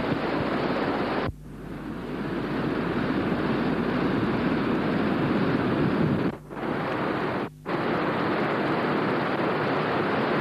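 Gullfoss waterfall, a glacial river crashing over the falls: a loud, steady rush of falling water. It cuts out suddenly about a second in and swells back, then drops out twice briefly a little past the middle.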